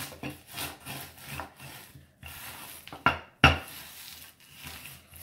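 Wooden rolling pin rolled back and forth over a sealed plastic zip-lock bag of pork rinds, crushing them into crumbs: repeated rolling and rubbing strokes, with two louder sharp knocks about three seconds in.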